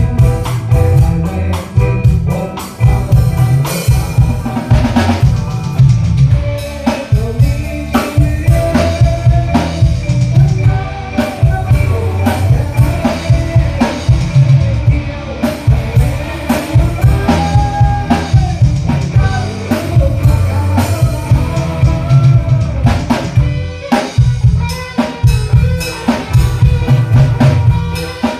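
Band music with a drum kit keeping a steady beat over heavy bass, with snare and rimshot hits.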